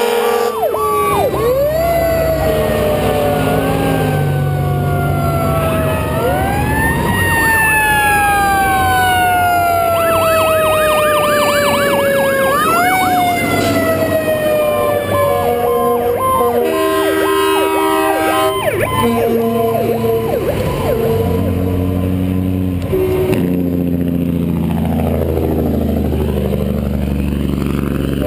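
Several fire truck sirens sounding at once as the trucks pass: wails rising and falling, a fast yelp about ten seconds in, and one long tone sliding slowly down in pitch. Air horns blast in steady chords around the middle and again near the end, over the rumble of heavy truck engines.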